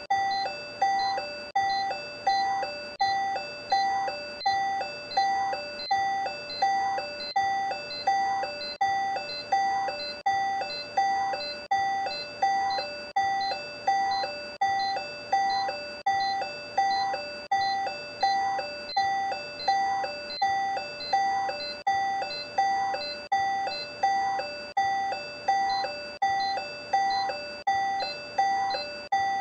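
Simulated cardiac monitor beeping: short electronic pitched beeps repeating evenly, about two a second, matching the simulated heart rate of about 118 beats a minute.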